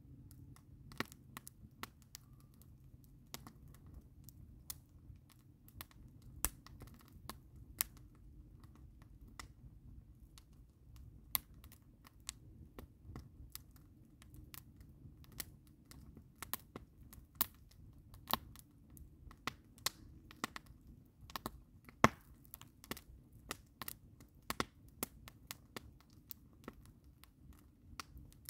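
Campfire of split logs crackling: irregular sharp pops and snaps over a low steady rumble, coming thicker and louder in the second half, with one loudest snap about two-thirds of the way through.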